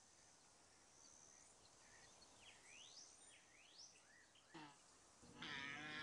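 Near silence: faint outdoor ambience with a few faint, short rising bird chirps in the middle, and a faint rasping, pitched sound in the last second.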